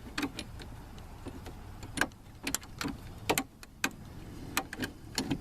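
Irregular sharp clicks and ticks, a dozen or so, of small retaining clips being worked off a plastic door handle assembly by hand.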